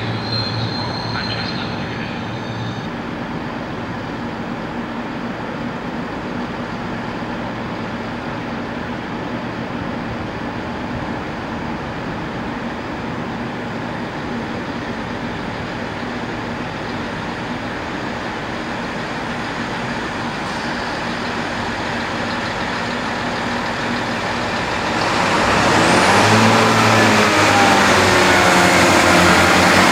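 A train heard from the lineside: a steady rushing noise, then about 25 seconds in it grows louder as an engine hum comes in, with tones sliding in pitch as it draws near.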